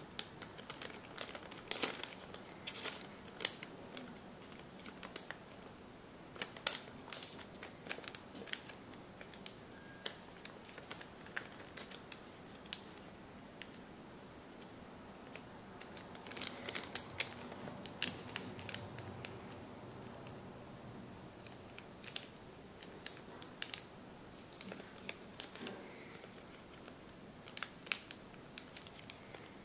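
A sheet of origami paper being handled and folded by hand, crinkling, with scattered sharp crackles as creases are pressed in, busiest a little past the middle.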